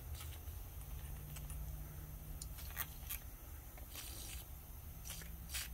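WD-40 aerosol can spraying through its straw in several short hissing bursts, most of them in the second half, over a low steady hum.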